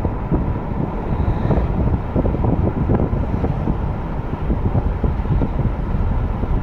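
Wind buffeting the microphone in a moving vehicle, a loud gusting rumble over the running noise of the road and engine.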